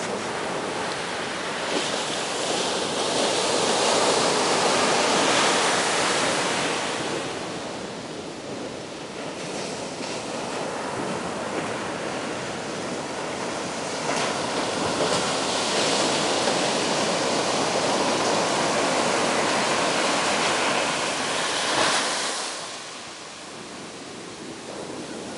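Ocean surf: waves breaking and washing up the beach in a continuous rush of water noise that swells and eases, loudest about four to six seconds in and again from about fourteen to twenty-two seconds, then dropping a little near the end.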